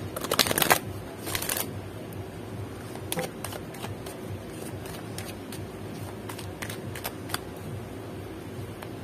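A deck of oracle cards shuffled by hand: a fast flutter of cards as the split deck is riffled at the start, a second short flutter just after, then scattered single clicks of cards being slid and tapped together.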